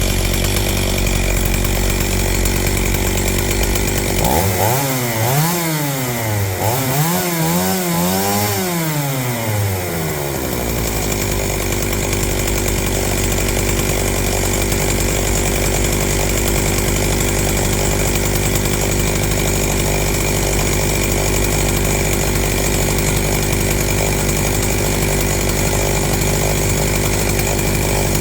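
Stihl 028 two-stroke chainsaw idling steadily. Its engine is revved up and down three times, from about four to ten seconds in, then drops back to idle.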